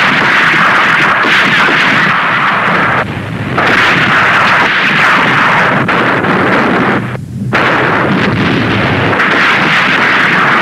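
Continuous din of an artillery and rocket barrage: a dense rushing roar of launches and gunfire with a low rumble beneath, broken by two short lulls, about three seconds in and about seven seconds in.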